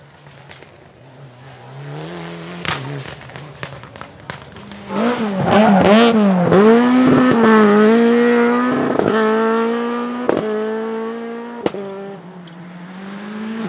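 Rally car engine revving hard: quiet at first, getting louder from about two seconds in, its pitch swooping up and down with throttle lifts and gear changes, then held high as the car passes and fades. A few sharp pops punctuate the engine note.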